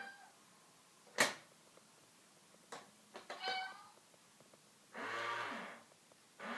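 Domestic cat meowing: a short call about halfway through and a longer, lower call near the end. There is a single sharp knock about a second in, with a few faint taps just before the first call.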